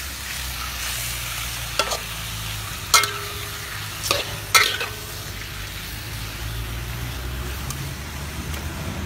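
Sliced snake meat sizzling as it is stir-fried in a steel wok. A metal spatula scrapes and clanks against the pan four times between about two and five seconds in, with the wok ringing briefly after two of the clanks.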